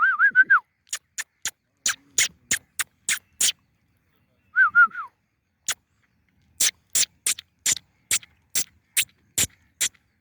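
A run of short, sharp smacking clicks, irregular, about two to three a second. Two brief warbling whistle-like tones come through, one at the start and one about halfway.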